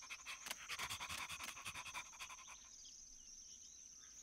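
Cartoon puppy panting quickly, about six short breaths a second, stopping about two and a half seconds in.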